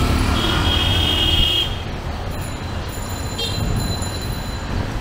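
City street traffic: a steady rumble of passing vehicles, with a brief high-pitched tone lasting about a second near the start.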